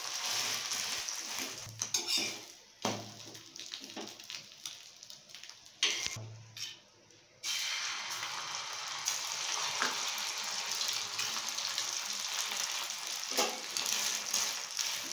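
Bread slices topped with beaten egg sizzling in oil on a flat griddle (tawa), with a few knocks and scrapes of a steel spoon and spatula. The sizzle drops away briefly about six seconds in, then comes back strong and steady.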